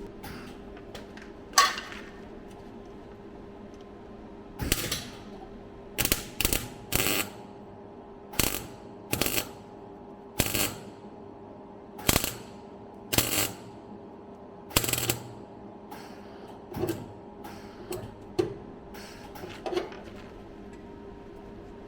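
MIG welder laying a run of short tack welds on car body steel: about fifteen brief crackling bursts, each well under a second, spaced a second or so apart, over a steady hum.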